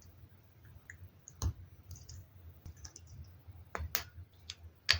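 Small plastic Lego minifigure parts clicking as they are handled and pressed together: a few sharp clicks, one about a second and a half in and a quick cluster in the last second.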